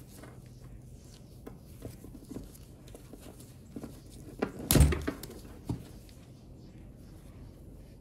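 Gloved hands handling electrical cord and a roll of electrical tape on a wooden workbench: faint rustling and small clicks, with a few knocks and one loud thump a little past halfway.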